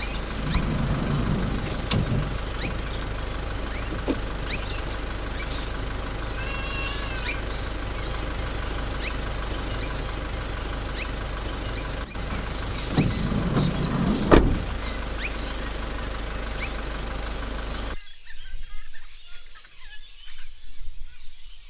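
Van engine idling, heard from inside the cabin: a steady hum with a light click now and then and a couple of louder low bumps. The hum cuts off abruptly about eighteen seconds in, leaving faint outdoor sound.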